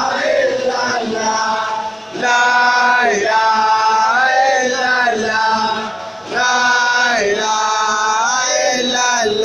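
Male voices chanting Islamic dhikr in long, held melodic phrases, with short breaks between phrases about two seconds and about six seconds in.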